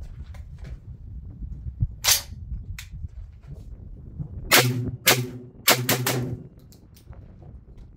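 Tokarev TT12 semi-automatic 12-gauge shotgun firing Federal 1200 fps bulk target shells: one shot about two seconds in, then a quick string of four or five shots fired in about a second and a half, the gun cycling the light loads.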